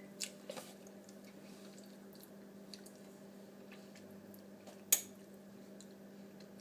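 A steady low hum with a few faint clicks, and one sharp click about five seconds in.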